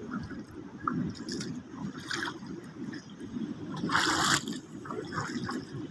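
Seawater washing and gurgling among shore rocks, with louder splashing surges about two seconds in and again about four seconds in.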